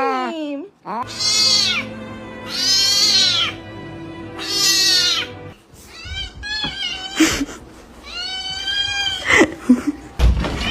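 A cat meowing: three drawn-out meows in the first half, then shorter meows with a few sharp knocks and a low thud near the end.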